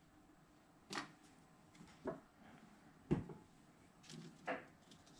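A few faint, separate knocks and taps of things being handled and set down on a desk, the loudest about three seconds in.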